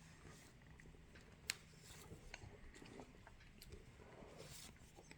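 Near silence with faint rustles and small clicks of trading cards being handled, and one sharp click about a second and a half in.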